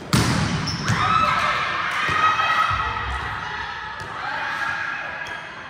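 A volleyball struck hard with a sharp smack just after the start, followed by players shouting in a large, echoing indoor hall, with a smaller knock about four seconds in.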